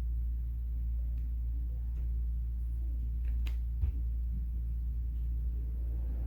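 Steady low rumble of air from a Dreo Cruiser Pro tower fan running, with a few faint clicks around the middle.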